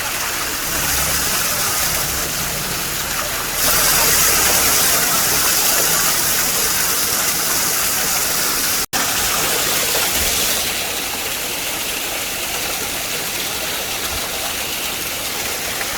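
Waterfall rushing, a steady, loud hiss of falling water. It gets louder about three and a half seconds in and breaks off for an instant about nine seconds in.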